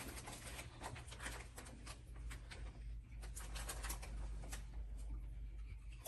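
Faint rustling of a Doritos bag and crunching of tortilla chips as they are handled and chewed: a scatter of small crisp clicks over a low steady hum.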